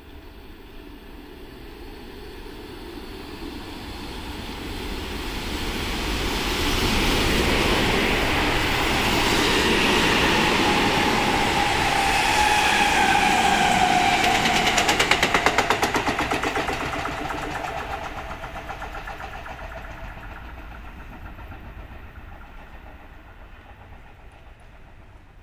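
Seibu 30000-series electric express train, two coupled sets, running through a station without stopping. It grows louder as it approaches, and a motor whine drops in pitch as it goes by. A rapid run of wheel clacks near the middle is the loudest part, then the train fades into the distance.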